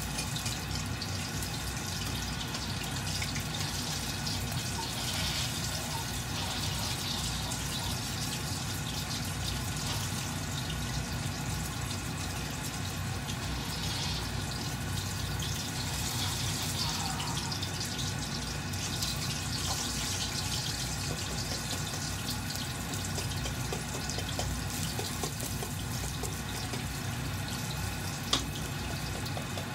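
Pork belly slab deep-frying in a wok of hot oil: a steady sizzling hiss with fine crackles, with a single sharp click near the end.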